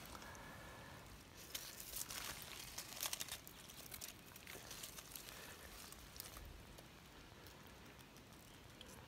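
Faint crackling and crunching of dry leaf litter and rotting log pieces being handled by hand. The crackles are densest in the first three seconds, then thin out.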